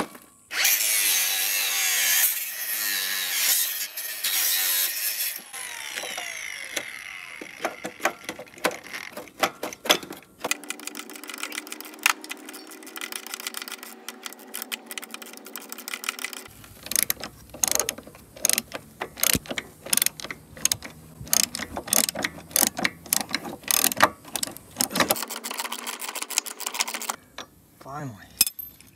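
Hand ratchet wrench clicking in quick runs as fasteners are turned. The first few seconds are taken up by a louder, harsh rasping noise.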